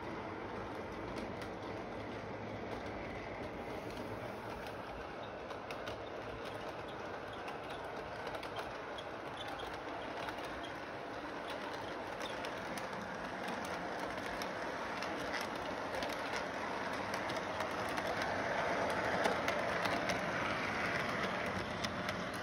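Model train running on its track: a steady rumble of the motor and wheels, with many small clicks as the wheels pass over the rail joints. It grows louder near the end as the cars pass close by.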